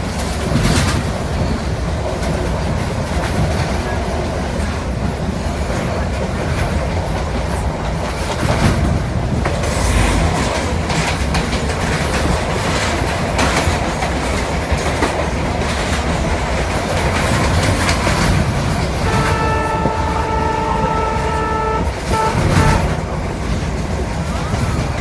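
Passenger train running, heard from inside the carriage: a steady rumble and clatter of wheels over the rails. About nineteen seconds in, the train horn sounds one long blast of nearly three seconds, then two short toots.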